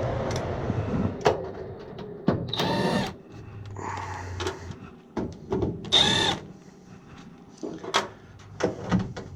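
Two short bursts of a cordless drill spinning, about three seconds apart, with small clicks and taps of handling between them. A low steady hum runs under the first half.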